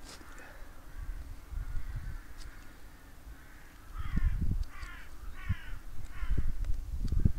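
A crow cawing four times in quick succession, starting about four seconds in, over low rumbling thumps.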